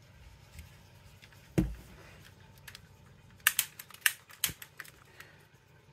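Small objects being handled on a worktable: a soft thump about a second and a half in, then a quick cluster of sharp clicks and taps.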